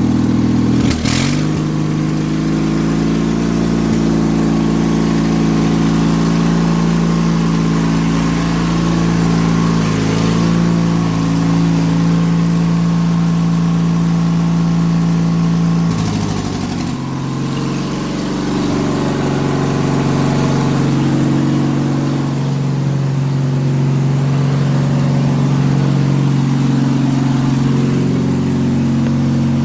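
Straight-piped twin-cylinder engine of a Yard Machines riding lawn mower running steadily. A sharp click comes about a second in, when its pitch drops, and the pitch drops again about sixteen seconds in.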